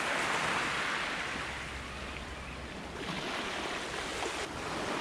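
Surf breaking and washing up a shingle beach: a steady rush that eases around the middle and builds again near the end.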